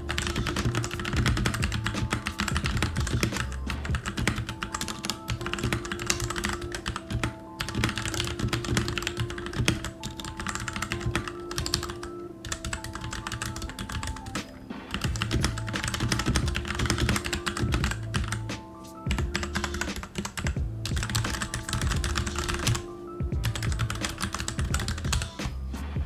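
Typing sound test on a Royal Kludge RK84 80% hot-swappable mechanical keyboard with its stock brown tactile switches: a dense, fast stream of keystroke clacks, broken by short pauses every few seconds. Background music plays underneath.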